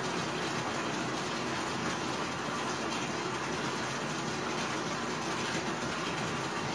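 Bathtub tap running, water pouring steadily into the filling tub.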